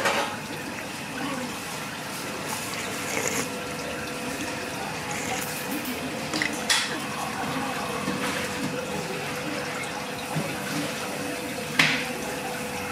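Ramen shop ambience: a steady wash of running water from the kitchen, with a faint steady hum coming in a few seconds in. A few sharp clinks of tableware, a spoon against a ceramic bowl, stand out, about six and twelve seconds in.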